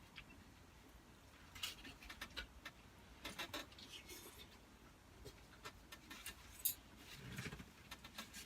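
Faint eating sounds: scattered small clicks and taps of cutlery against a plate, with one sharper click near the end.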